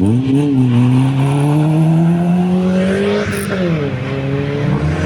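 Rally car accelerating hard away from the start line. The engine climbs steadily in pitch, drops with an upshift about three seconds in, climbs again, and shifts once more near the end.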